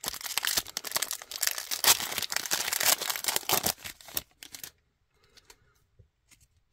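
Foil trading-card pack wrapper crinkling and tearing as it is ripped open and peeled back off the cards, stopping after about four and a half seconds. Then faint, soft rustles as the stack of cards is handled.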